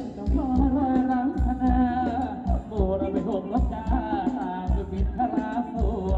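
Live band playing Thai ramwong dance music: a wavering sung melody over a steady bass-drum beat.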